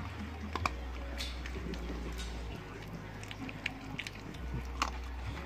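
Pit bull puppy chewing raw chicken, with irregular wet crunches and sharp clicks of teeth on bone and meat.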